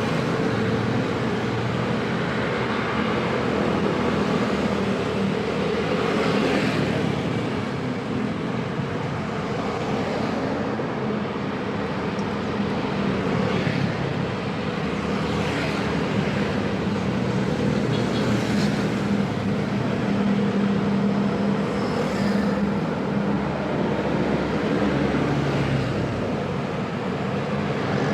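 Dense road traffic: many motor vehicles running together in a steady din of engines and exhausts.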